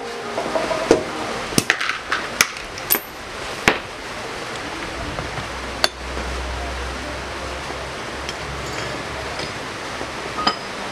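Sharp metal clinks and knocks as scooter CVT parts and tools are handled and set down while the transmission is taken apart. There are about seven separate clinks, most in the first few seconds, one near the middle and one near the end.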